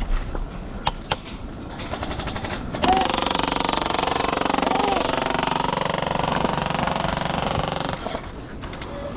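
Scattered clicks and knocks, then from about three seconds in a long, fast, rapid-fire rattle of an airsoft gun firing on full auto, which stops about eight seconds in.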